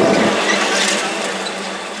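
Reading and Northern diesel locomotive moving away after passing close by, its engine and wheel noise fading steadily, with a steady low hum and a few light clicks.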